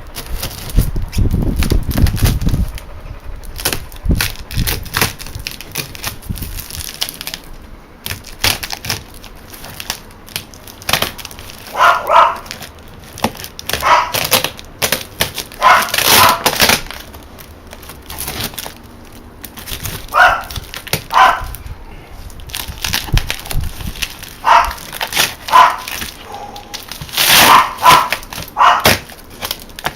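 A dog barking in short bursts, in clusters through the second half, over the knocks and crackle of a tomahawk hacking and prying open a shipping box.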